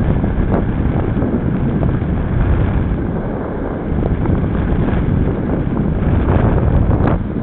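Heavy wind buffeting on the microphone of a bicycle-mounted camera while riding at speed, a steady low rumble mixed with road noise, with a few light clicks from the bike.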